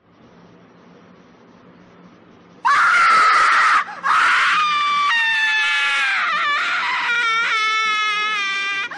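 Faint room tone, then about three seconds in a loud, high-pitched wavering shriek sets in, breaks off once briefly, and carries on for about five seconds more.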